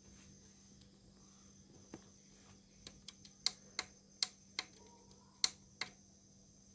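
Faint room tone with a steady low hum, broken by about nine sharp, light clicks, most of them bunched in the middle few seconds.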